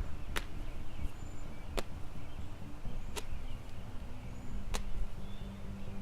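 Horse-training whip swished in short, sharp strokes, about one every one and a half seconds, four times.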